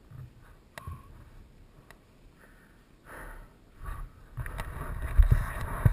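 Small knocks and rustles, then from about four and a half seconds in a dirt bike engine running as a steady rough low rumble.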